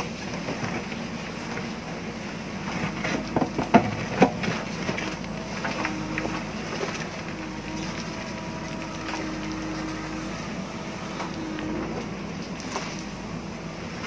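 JCB backhoe loader's diesel engine running steadily under load while the rear bucket digs into rocky soil. About three to four seconds in, a cluster of sharp knocks and scrapes sounds as the bucket strikes stones.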